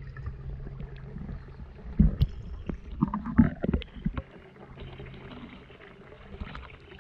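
Water sloshing and dripping around a GoPro in its waterproof housing as it is lifted out of a pond, with several knocks from handling the case. A steady low hum stops about four seconds in.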